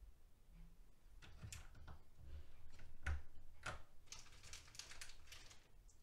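Clear plastic keycap bags crinkling and loose plastic keycaps clicking as they are handled, in light, irregular rustles and ticks. These are loudest about three seconds in.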